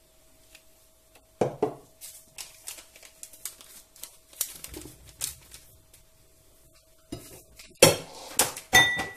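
Kitchen bowls and utensils being handled on a worktop: scattered clinks and knocks, with a louder run of clattering near the end, over a faint steady hum.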